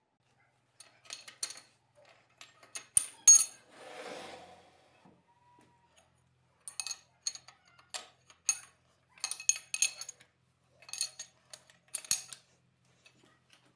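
Metal clinks and knocks as a manual lathe's tailstock, carrying a twist drill in a drill chuck, is moved and set against a steel plate in a four-jaw chuck. There are irregular sharp clicks in small clusters, and a short scraping rustle about four seconds in.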